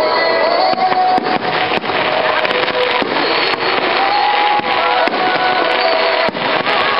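Fireworks display going off continuously: a dense run of sharp bangs and crackles with no pause.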